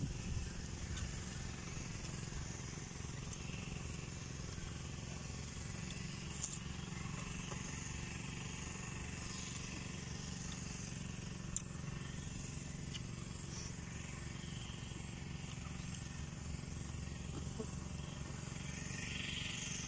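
Steady low outdoor rumble with a light hiss, and a few faint crunches from chewing raw jicama.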